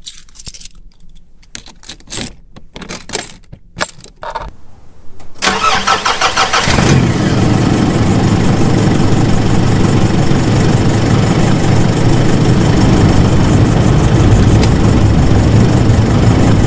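An engine starting: a few short, irregular sputters, then about five seconds in it catches and keeps running steadily.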